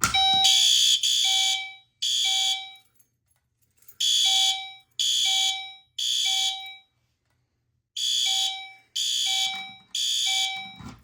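Fire alarm notification appliances sounding in the temporal-3 evacuation pattern after a pull station is pulled. A System Sensor SpectrAlert Advanced horn and a Gentex Commander 3 set to chime sound together in three groups of three pulses, each group followed by a pause of about a second.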